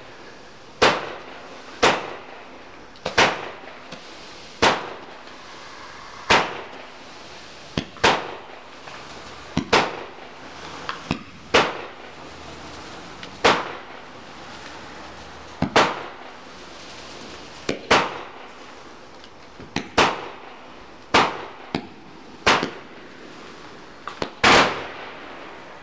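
Klasek 'No Sound' 25-shot firework cake, a low-noise cake, firing its shots one after another: a sharp pop about every second and a half as each shot lifts its coloured stars.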